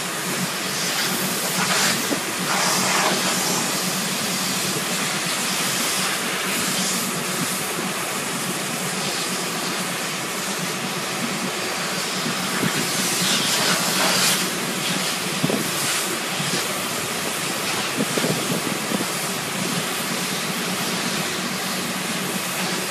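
Oxbo self-propelled pea combine running steadily: a loud, even hiss over a constant low hum, swelling briefly a few times.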